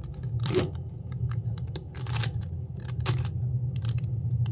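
Plastic clicking and clacking of a stickerless 3x3 speed cube as its layers are turned quickly by hand through an algorithm, an irregular run of many sharp clicks. A low steady hum lies underneath.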